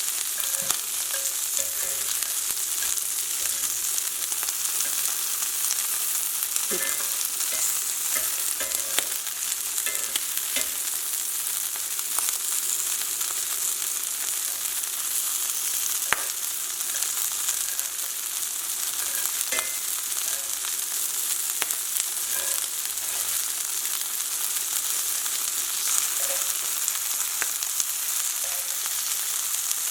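Coated shrimp frying in hot oil in a pan: a steady sizzle, with a few light clicks along the way.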